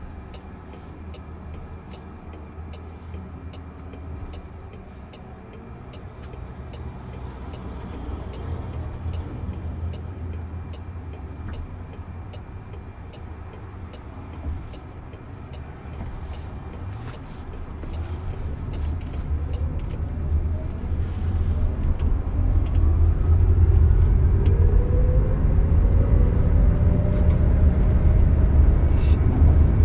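Inside the cabin of a Jaguar I-PACE electric car: low road and tyre rumble that grows much louder over the second half as the car picks up speed, with the electric drive's whine rising in pitch. A light, regular ticking, the turn signal, runs through the first half.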